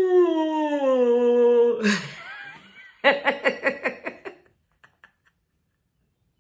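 A man's voice making a long vocal sound that slides steadily down in pitch, a breath, then a short burst of rhythmic 'ha-ha-ha' laughter about three seconds in. This is deliberate laughter as part of a laughter exercise.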